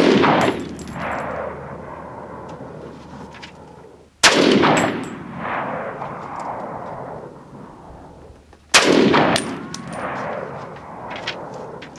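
Saiga .308 semi-automatic rifle firing Underwood 165-grain .308 rounds: three shots about four and a half seconds apart, the first right at the start. Each shot is followed by a long echoing decay.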